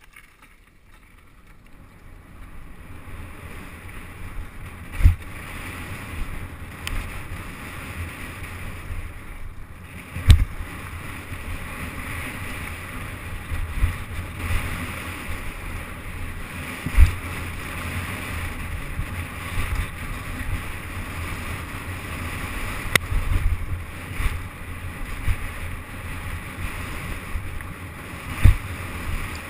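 Wind buffeting a helmet-mounted action camera and the tyre and frame noise of a downhill mountain bike running fast down a dirt trail. The noise builds over the first few seconds as the bike picks up speed, with four sharp thumps as it hits bumps.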